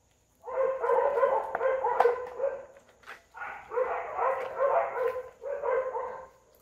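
A dog barking in quick runs of yaps, three runs in all, the first and loudest about half a second in.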